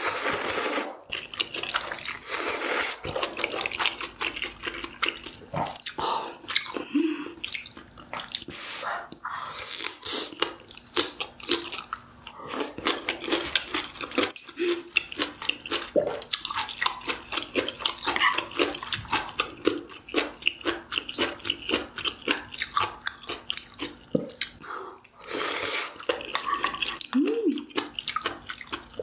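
Close-miked eating of udon noodles in hot-pot broth: wet chewing and mouth clicks throughout, with long noodle slurps near the start, about three seconds in and again around twenty-five seconds in.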